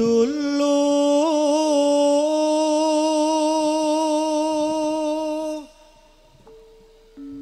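A campursari singer holding one long sung note, with small ornamental bends in pitch near the start, for about five and a half seconds before it stops. Faint steady instrument notes carry on afterwards.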